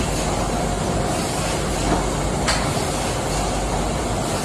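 HF 1080 automatic hot foil stamping machine running, a steady dense mechanical clatter of its sheet-feeding and transport mechanism, with a brief sharp click about two and a half seconds in.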